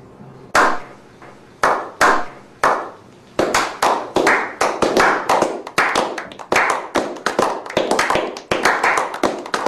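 A small group of people clapping by hand: a few slow, spaced claps at first, picking up about three seconds in to quicker, steady applause.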